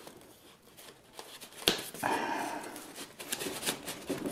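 Cardboard box and its white packing wrap rustling and scraping as a heavy item is worked out of the box by hand, with a sharp click about a second and a half in.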